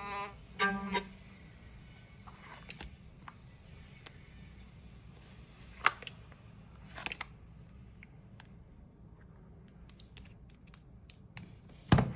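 A phone ringtone with a bowed-string melody sounds its last notes and stops about a second in. Scattered sharp clicks and taps follow, with a louder knock near the end.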